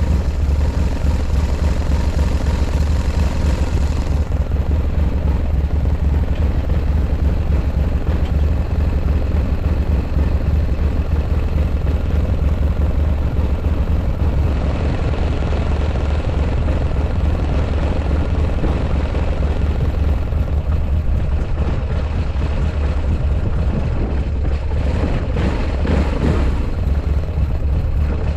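Buell X1 Lightning's air-cooled 1203 cc V-twin engine idling steadily, which the seller describes as free of abnormal noise.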